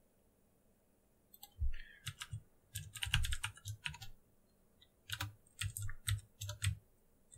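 Typing on a computer keyboard: two short runs of irregular keystrokes, the first starting over a second in, the second after a pause of about a second.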